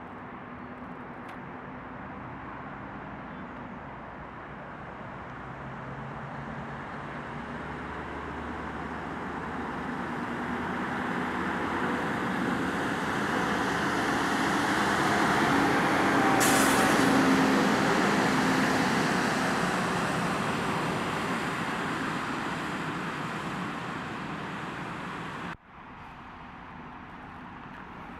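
Scania R580 timber truck with a loaded log trailer driving past, its V8 diesel running: the sound swells as it approaches, is loudest about midway, then fades away, with tyres hissing on the wet road. A sudden hiss sets in at the loudest point. Near the end the sound cuts off abruptly, leaving faint distant traffic.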